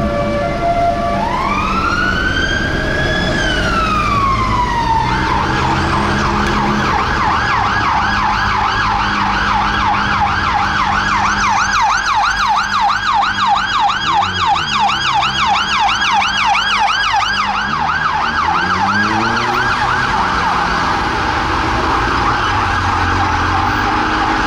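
Metropolitan Police Vauxhall Vivaro van's siren on an emergency run. It gives one slow wail rising and falling, then about five seconds in switches to a fast yelp that warbles up and down several times a second, over traffic noise.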